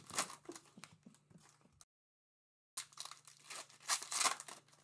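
Trading-card packaging being torn open and crinkled, in scattered rustles and clicks, over a faint steady hum. About two seconds in, the audio drops to dead silence for about a second, then the tearing and crinkling resume, loudest near the end.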